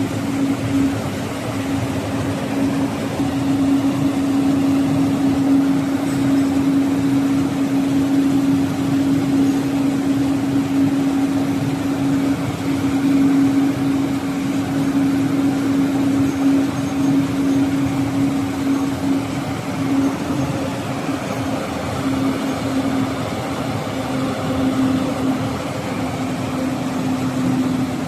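Glass tempering furnace line running: a steady machine hum with one strong constant tone over even noise.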